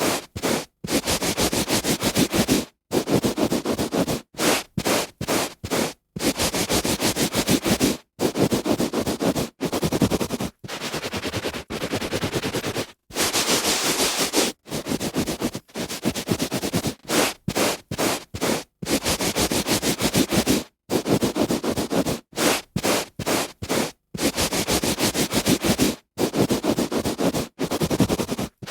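A hand rubbing back and forth on a carpet, a run of scratchy rubbing strokes of uneven length with brief silent breaks between them.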